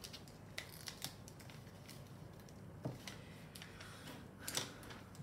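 Scissors snipping paper: a few faint, irregular snips, the clearest cluster about four and a half seconds in.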